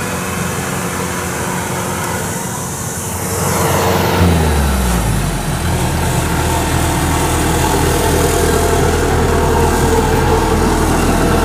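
A farm machine's engine runs steadily. About four seconds in, the sound jumps louder with a falling engine note, and a Kubota DC105X combine harvester then runs loud and steady close by.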